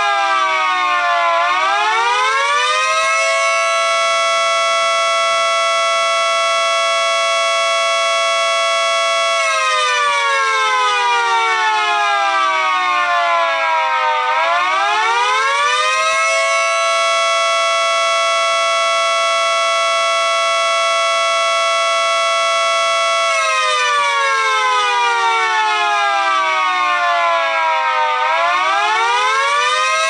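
Miniature electric model of a 3T22B outdoor warning siren sounding a two-note chord. It repeatedly winds down in pitch for about five seconds, climbs back to full pitch over about two seconds, and holds at the top for about six seconds before the next wind-down.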